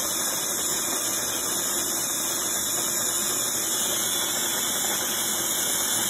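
Sboly electric conical burr coffee grinder running steadily, grinding coffee beans on an automatic timed cycle set for four cups.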